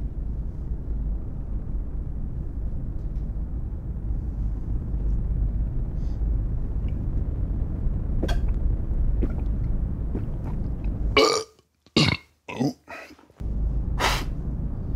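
A man burping loudly: a cluster of burps about eleven seconds in and another near the end, over a steady low room hum.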